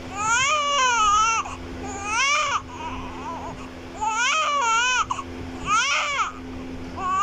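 Newborn baby crying in repeated wails, about five cries each rising and falling in pitch, with short catches of breath between them.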